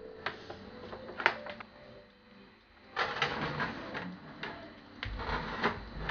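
A built-in oven door being pulled open, then a metal baking tray loaded with tin loaf pans slid onto the oven's wire rack: a sharp knock about a second in, then metal scraping and clattering from about three seconds in, with a low thump near the end.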